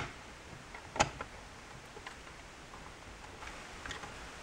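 Plastic parts of a car's dashboard info-center unit clicking and tapping as they are handled and fitted back together. There is a sharp click at the start and another about a second in, then a few faint ticks.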